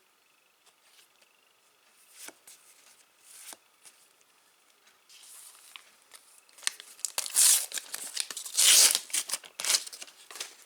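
Paper sticker packet being torn open and crinkled in the hands: a few soft crackles at first, then a few seconds of loud tearing and crinkling near the end.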